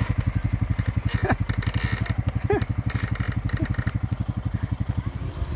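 Honda ATV engine idling with a steady, even, fast pulse.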